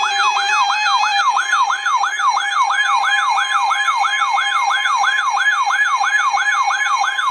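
Electronic siren-style alert tone, a wailing pitch sweeping rapidly up and down about three times a second over a steady underlying tone.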